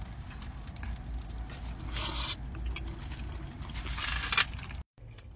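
Close-up eating sounds of a consommé-dipped birria taco being bitten and chewed, small wet clicks over a low steady hum, with two short louder hissing noises about two seconds and four seconds in. The sound drops out briefly near the end.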